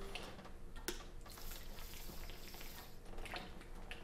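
A person drinking from a water bottle: faint swallowing and liquid sounds, with a single light click about a second in.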